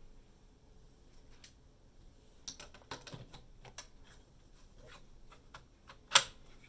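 Metal sockets being pushed onto the plastic clips of a socket rail organizer: scattered sharp plastic clicks and taps, the loudest about six seconds in.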